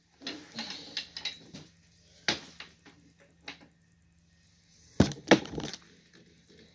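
Knocks and clicks of a chair's tubular frame parts being handled and fitted together during assembly. Scattered taps come in the first couple of seconds, a sharp knock follows just after two seconds, and two loud knocks land about five seconds in.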